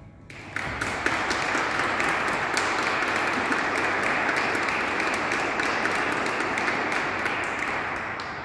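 Audience applause in a cathedral, breaking out about half a second in as the organ's last chord has died away, and going on steadily.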